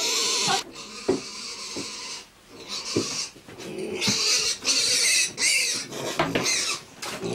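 A piglet squealing in repeated bursts as it is carried, with a few short knocks in between.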